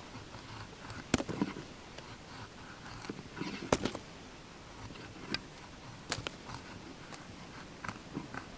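Knife working a piece of birch wood by hand: scraping with a few sharp clicks and cracks, the loudest about a second in and just under four seconds in.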